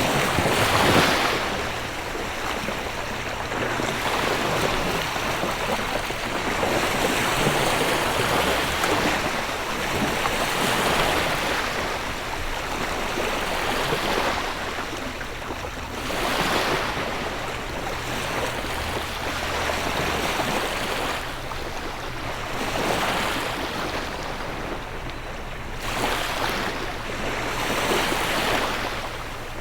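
Sea waves breaking and washing onto the shore, swelling and fading every few seconds. A faint low steady hum runs underneath.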